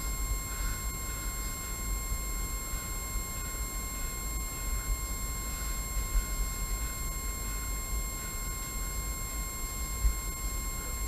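Steady high electronic whine made of several fixed tones, over a constant low rumble; a soft knock about six seconds in and another near the end.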